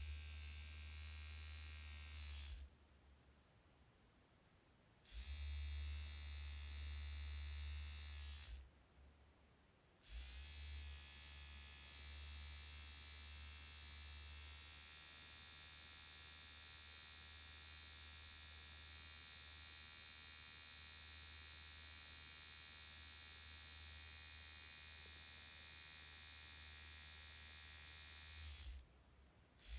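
Steady low electric vibrating buzz, switched on and off: a short run, a pause, a second short run, then a long run that stops near the end.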